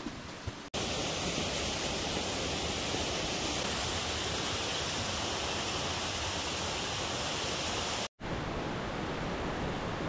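Strong wind and driving rain rushing steadily over the microphone, a dense even hiss, broken by two abrupt edit cuts, one about a second in and one near the end.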